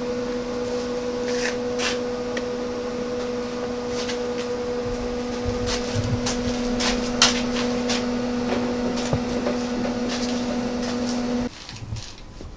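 A steady electric machine hum, a low tone with a second one an octave above, that cuts off suddenly near the end. Scattered light clicks and clinks of metal parts being handled on the gearbox sound over it.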